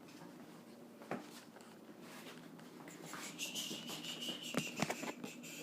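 Packaging being handled and opened: faint scraping and rustling, with a click about a second in and a louder scratchy stretch from about halfway, broken by a few sharp cracks.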